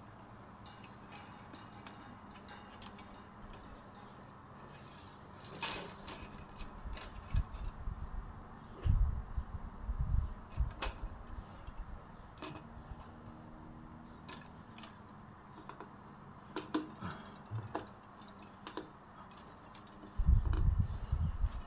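Thin bamboo strips clicking and rustling against each other as they are woven by hand, with irregular light ticks. There are heavier dull knocks around nine to ten seconds and again near the end.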